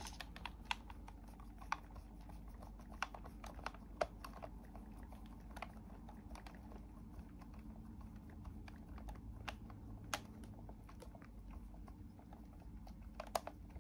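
A small hand screwdriver driving tiny screws into a scale model car's door sill: faint, irregular light clicks and ticks, a few sharper ones near the end, over a low steady hum.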